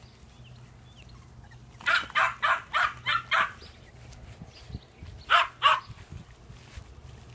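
West Highland White Terrier puppy yapping: a quick run of about six short, high yaps, then a pause and two more.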